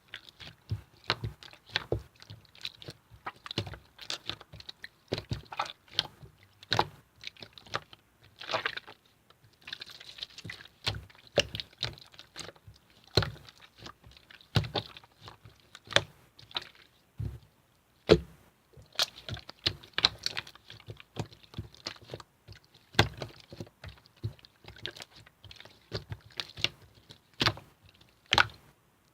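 Clear blue slime being squished and pressed by hand, giving irregular sticky clicks and pops with soft squelching between them.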